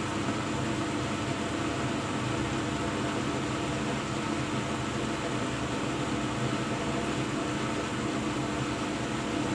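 Hoover WDYNS654D washer dryer filling with water for its pre-wash: a steady hiss of water running in, with a faint low hum.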